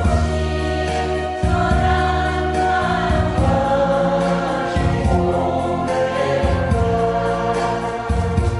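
Song with several voices singing together over an accompaniment, with held melody notes and a bass line that changes every second or two.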